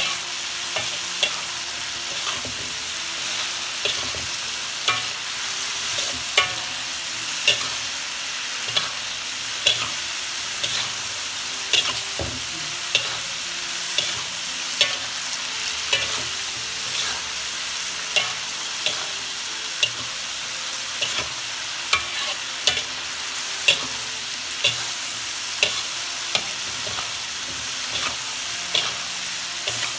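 Long beans sizzling in a metal wok as a metal spatula stir-fries them, scraping and clacking against the pan about once a second. The beans are nearly cooked.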